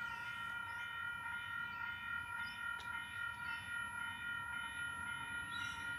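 Oscar (H set) electric passenger train standing at the platform, giving off a steady whine of several tones over a low rumble.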